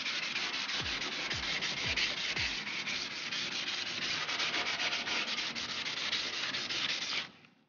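Hand scuffing of the wet, soapy painted sheet metal of a car's hood jamb with an abrasive, in quick back-and-forth strokes that stop shortly before the end.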